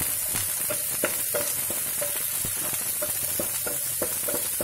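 Chopped onion sizzling in hot oil in a pan, stirred with a wooden spatula that scrapes and taps against the pan in quick, irregular strokes over a steady frying hiss.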